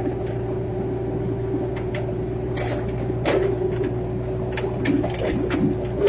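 Excavator engine running steadily with a constant hum, with a scattered series of short clanks and knocks from about two seconds in, the loudest near the end.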